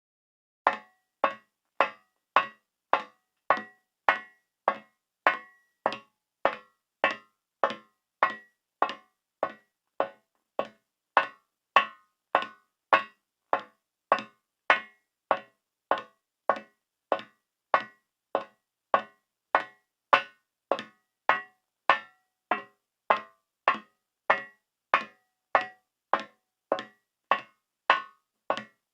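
Footsteps on a metal surface at a steady walking pace, about one and a half steps a second. Each step is a sharp hit with a short metallic ring, with silence between steps.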